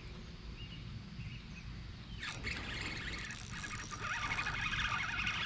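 A few faint bird chirps over a low steady hum, then from about two seconds in a hiss with rapid fine ticks that grows steadily louder.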